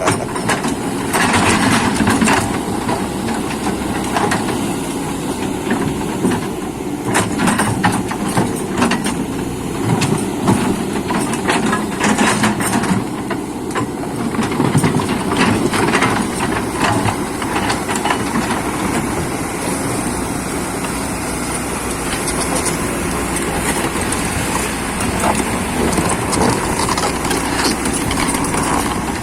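Excavator diesel engine running steadily, with frequent short knocks and clanks over it.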